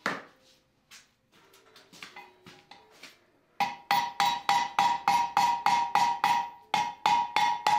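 A blacksmith's hammer clanks down on the anvil, then after a few light clinks starts striking red-hot steel over the anvil horn in a fast, even run of about four blows a second, with a brief pause near the end. Each blow leaves the anvil ringing at a steady pitch.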